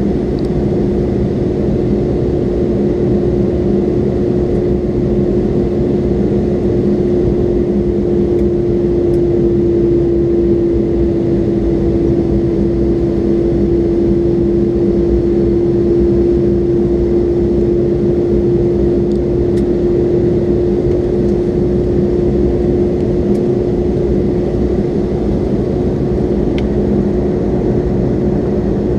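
Inside the cabin of a McDonnell Douglas MD-82, the rear-mounted Pratt & Whitney JT8D engines run at a constant power setting. They make a steady low roar with a held hum running through it.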